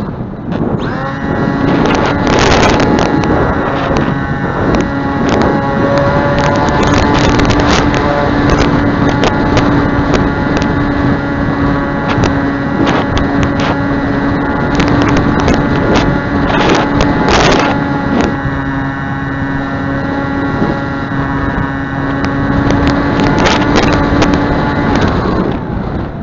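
A model airplane's motor and pusher propeller run at a steady high throttle with a constant whine, spooling up about a second in and winding down near the end. Gusty wind buffets the microphone throughout, with irregular rough blasts.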